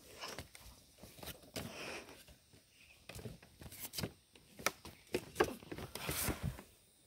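Irregular knocks, taps and scuffs of a person climbing a rope-lashed wooden ladder up a tree, hands and feet striking the plank rungs, with a few short rustles.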